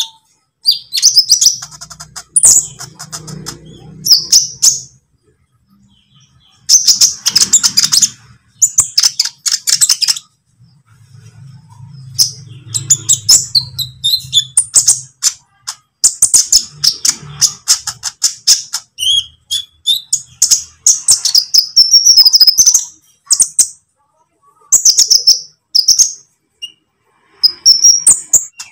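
Olive-backed sunbird (kolibri ninja) singing: rapid, high-pitched chirping and twittering phrases in bursts, broken by short pauses, including one near the start and one about five seconds in.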